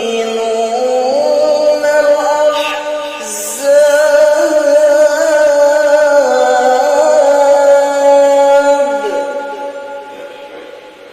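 A male qari's voice in melodic Quran recitation (tilawah), drawing out one long ornamented phrase. It swells to a loud, high held note about four seconds in, then trails off and fades over the last couple of seconds.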